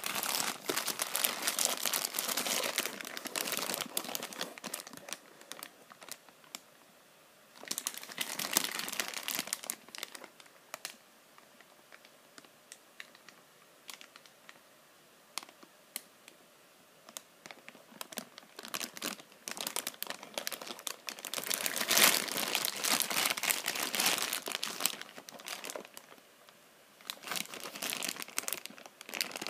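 Clear plastic bags crinkling and rustling as figure parts are handled and unwrapped, in several bursts with quieter pauses between them; the loudest crinkling comes about two-thirds of the way through.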